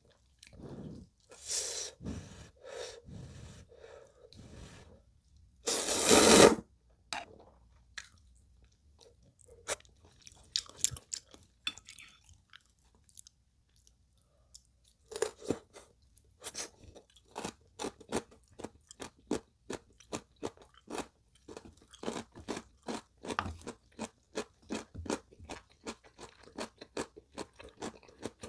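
Close-miked eating of instant ramen noodles with soft tofu: slurping, with the loudest slurp about six seconds in. After a short lull near the middle, another slurp is followed by steady wet chewing and crunching.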